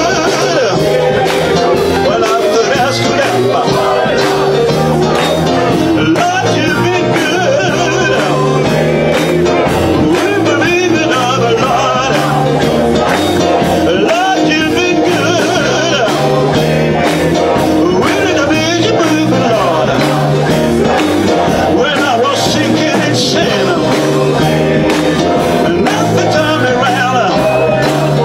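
Live band music: electric guitar and bass guitar played through amplifiers, with a man singing a rock-style song.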